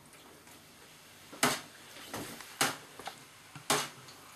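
A metal spoon knocks sharply against a metal roasting tin three times, about a second apart, with a few fainter ticks between, as it scoops melted wax.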